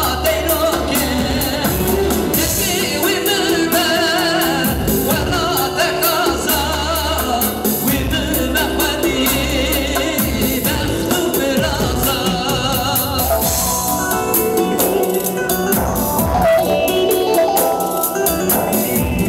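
Male vocalist singing a Kurdish song with heavy vibrato and ornamented runs, backed by an electronic keyboard playing melody and bass. About two-thirds of the way through the voice stops and the keyboard carries on alone in an organ-like instrumental passage.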